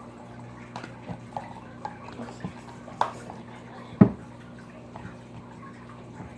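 Plastic slime containers being handled and set down: a scatter of light clicks and knocks, the loudest two about three and four seconds in, over a steady low hum.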